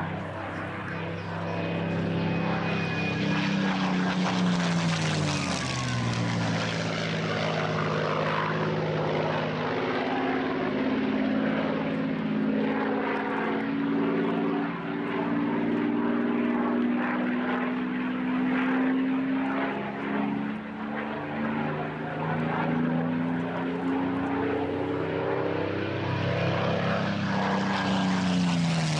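Supermarine Spitfire's V12 piston engine and propeller in a low display flypast. The engine note drops in pitch as the plane passes, about six seconds in and again near the end.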